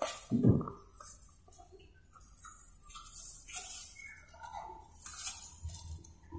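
Thin plastic bag rustling and crinkling in short bursts while it is held open and filled with fried tofu, loudest near the start and again about five seconds in.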